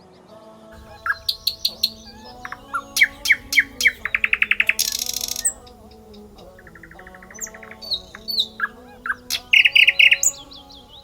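Small songbirds chirping: runs of sharp chirps and fast rattling trills, loudest about four to five seconds in and again near ten seconds, over a soft sustained music bed.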